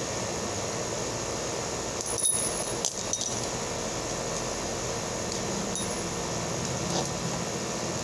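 Metal clicks and clinks of a balisong (butterfly knife) being flipped, its handles and blade knocking together. There is a louder clatter of several clinks about two seconds in, then single clicks near the end, over a steady hiss.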